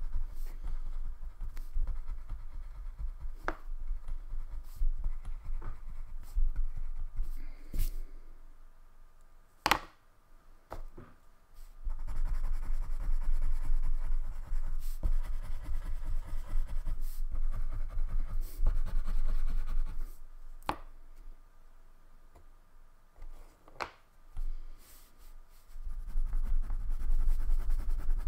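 Wax crayon rubbing on paper in quick back-and-forth colouring strokes, in stretches of a few seconds with short pauses between. A few sharp clicks stand out in the pauses.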